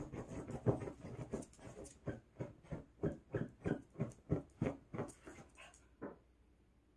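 Poodle digging and nosing at a pillow on the floor: scuffing and snuffling, settling into a quick even run of strokes about three a second, stopping about six seconds in.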